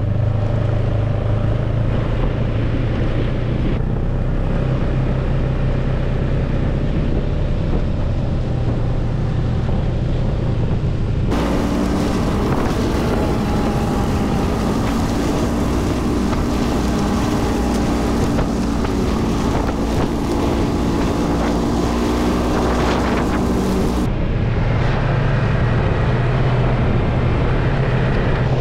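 Snowmobile engine running steadily under way, with wind noise on the microphone. The engine's tone changes abruptly about eleven seconds in and changes back near the end.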